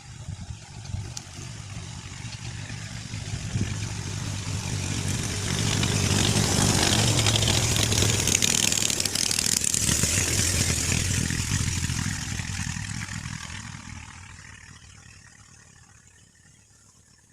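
An engine passing by: it grows louder, is loudest about six to eleven seconds in, and fades away near the end.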